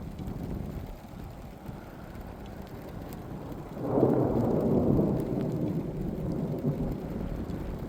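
A roll of thunder that swells suddenly about halfway through and slowly dies away.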